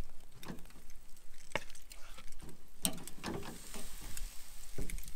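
Chorizo and longaniza sausages sizzling on a grill, with scattered sharp crackles and pops.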